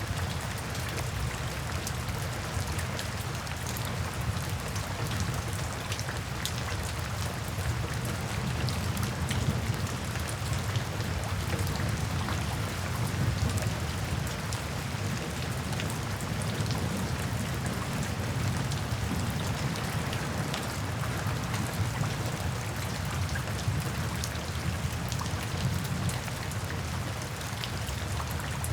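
Steady rain falling, with many individual drops ticking on a surface and a low, even rumble underneath.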